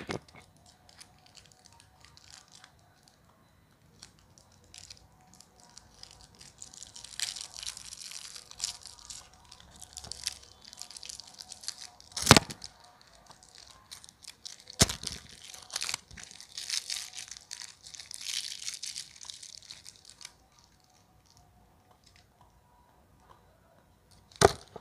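Foil wrappers on chocolate candies crinkling as hands handle them close to a microphone, in crackly stretches with quieter gaps, broken by a few sharp clicks, the loudest about halfway through and near the end.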